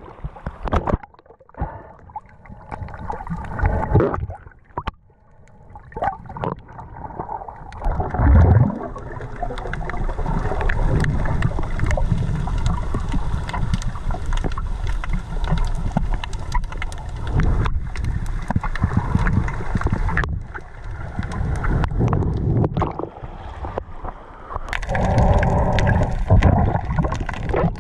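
Water splashing and gurgling as a person gets into the sea and moves through it, with scattered knocks at first, a heavy thump about eight seconds in, then a steady rush of water.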